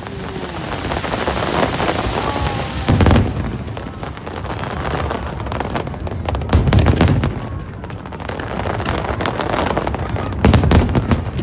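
Aerial fireworks display: shells bursting in clusters of sharp bangs about every three to four seconds, with continuous crackling between the clusters.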